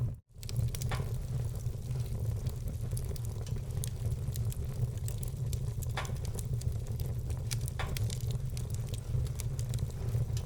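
Wood fire burning in a fireplace, crackling continuously with small pops and a few louder cracks over a steady low rumble. The sound drops out for a split second just after the start.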